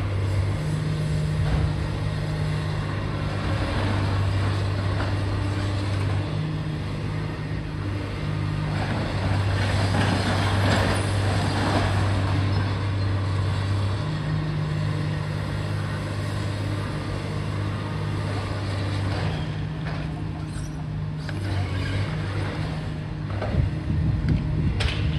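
Heavy diesel engine running at a steady speed, its low hum briefly dropping out and returning a few times, over a rough rattle and scattered knocks.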